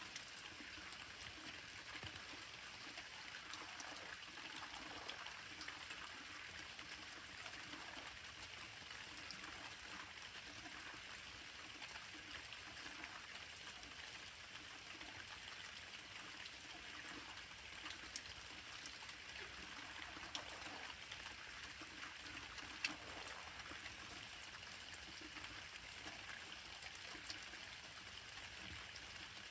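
Light rain falling in the dark: a faint steady hiss with a few scattered drops ticking.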